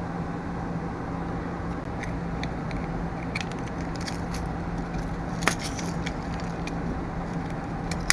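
Scattered light metallic clicks and jingles of small thin cleaning wires being handled and worked into a small-engine carburetor's emulsion tube, with a sharper click about five seconds in, over a steady low hum.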